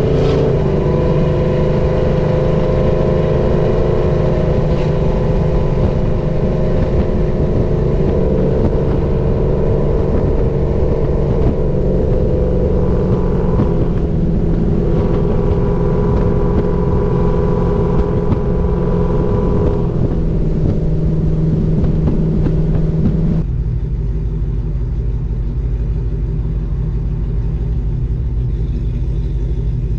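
Ram pickup's Hemi V8 exhaust droning steadily while cruising, heard from the truck bed along with wind and road noise. About 23 seconds in it drops abruptly to a quieter, lower-pitched idle as the truck sits stopped.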